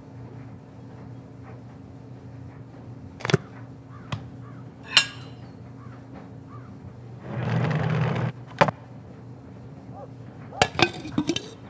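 Crockery and containers being set down and handled on a dining table: a few sharp knocks and clinks, one of them ringing briefly, and a scrape of about a second midway. Near the end come a quick run of clinks as the lid of a clay water pot is lifted. A low steady hum runs underneath.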